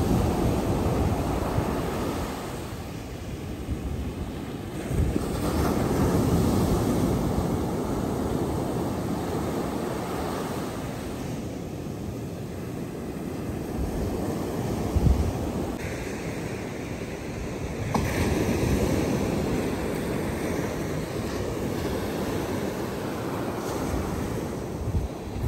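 Ocean surf breaking on the beach, swelling louder a few times as waves come in, with wind buffeting the microphone.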